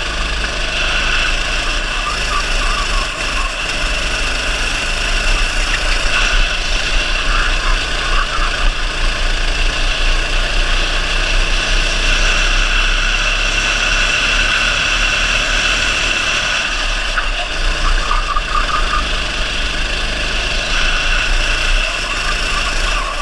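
270 cc kart engine running at speed on board the kart, heard from the driver's seat, its note fairly steady with a couple of brief dips as it lifts through corners.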